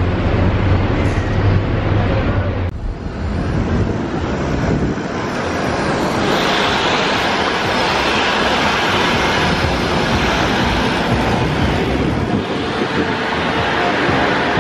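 Wind rushing over the microphone on the open top deck of a moving double-decker tour bus. A steady low engine hum is under it for the first few seconds, then a dense, even rush of wind takes over.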